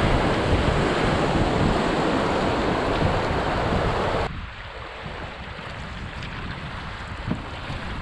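Rushing water of a river rapid with wind buffeting the microphone, dropping suddenly a little past halfway to a much quieter flow of water with a few light splashes.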